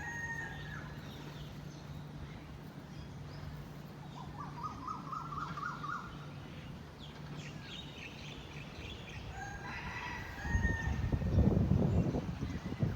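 Birds calling: short chirps, a quick run of rising notes about four seconds in, then more calls, over a steady low hum. A loud low rumbling noise comes in about ten and a half seconds in and lasts about two seconds.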